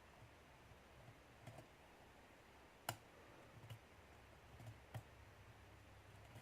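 Faint clicks of a pin-tumbler lock being single-pin picked with a hook pick under light tension, as the pick lifts pins; one sharper click about three seconds in, with a few smaller ones after it.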